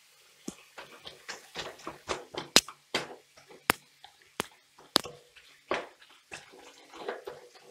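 Wooden spatula stirring chunks of marinated chicken in a non-stick wok: irregular knocks and scrapes of wood against the pan, with a few sharper clacks, and wet squelching of the meat.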